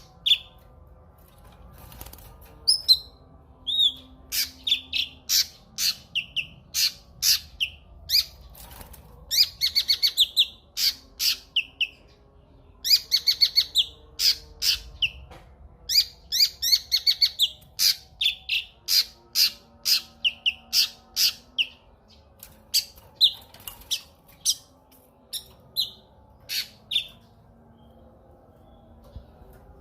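A cucak kinoi songbird singing: loud, sharp high chirps in quick runs, broken by short pauses, with a rapid rattling series about ten seconds in and again around thirteen seconds.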